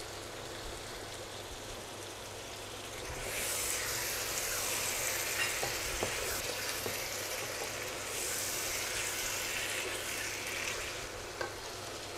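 Raw goat meat sizzling in hot oil and fried spice paste in a cooking pot, stirred with a wooden spatula, with light scrapes and clicks. The sizzle grows louder about three seconds in, as the meat is turned into the masala, and eases a little near the end.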